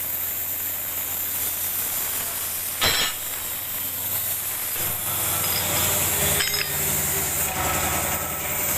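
Plasma cutter running on compressed air: a steady hiss over a low hum, with a sharp crack about three seconds in and a smaller one about six and a half seconds in.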